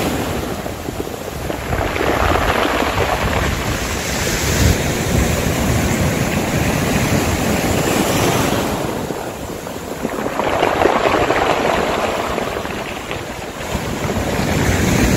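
Sea waves breaking and washing in and out over a pebble beach, swelling and ebbing several times, loudest about ten seconds in, with wind rumbling on the microphone.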